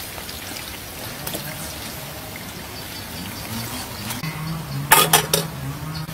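Hot oil sizzling and crackling in a wok as battered potato fritters deep-fry and are lifted out with a wire strainer. About five seconds in come three quick, sharp metallic clinks as the metal spatula strikes the wire strainer.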